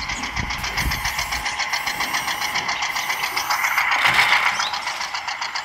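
Small geared electric motor of a toy tractor trailer whirring steadily as the tipper bed lifts, with a rattling pour of small nuts into a plastic hopper about four seconds in.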